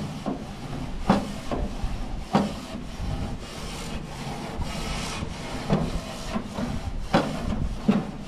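Grill brush scraping the hot metal grates of a gas grill in repeated rasping strokes, about one to one and a half seconds apart.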